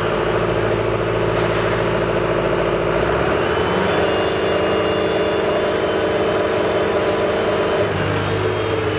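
Two diesel tractor engines, a green John Deere and a blue tractor, running hard while pulling against each other under load in a tractor tug-of-war. The engine note shifts about three seconds in and again near the end.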